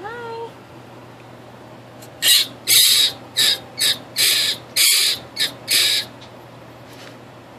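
Pet rodent screaming: about eight harsh, shrill screams in quick succession over some four seconds, after a short pitched squeak at the start. The screams are a sign of the animal's agitation.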